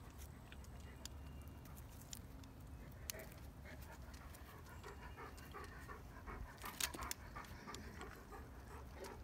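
A dog panting quickly and rhythmically, with a few scattered clicks and a brief sharp crackle about two-thirds of the way in.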